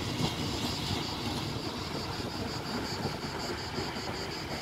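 Steady low rumble of locomotives running in a rail yard, with cicadas pulsing about five times a second above it.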